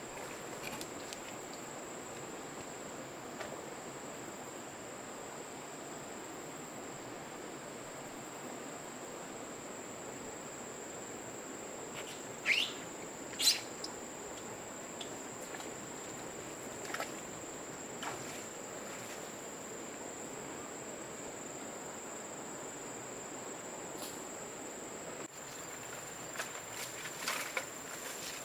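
Forest insects giving a steady high-pitched drone, with a few brief sharp chirps or clicks about halfway through and again near the end.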